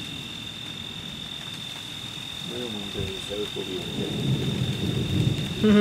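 Thunder rumbling low and rolling, swelling louder over the last couple of seconds, over a steady high trill of crickets.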